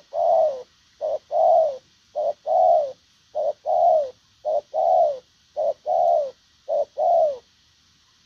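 Spotted dove cooing: seven phrases about a second apart, each a short note followed by a longer falling note.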